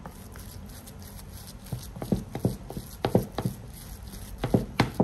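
About a dozen short, irregular knocks and taps of kitchen work: hard utensils, bowls or containers being handled and set down on a counter. They come in two clusters, starting a little under two seconds in and again near the end.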